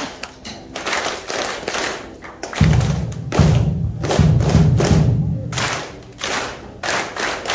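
An audience clapping in unison on a leader's hand signals. Sharp single claps come first. From about two and a half seconds in, deeper low claps made with cupped, crossed hands mix in with them.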